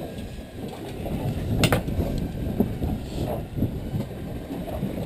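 Steady rumbling noise aboard a small boat under way, with a few sharp knocks and clicks on deck; the loudest knock comes about a third of the way in.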